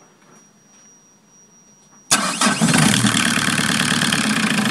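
Solé Diesel marine diesel engine starting from cold: quiet for about two seconds, then it fires suddenly and runs on at a steady idle.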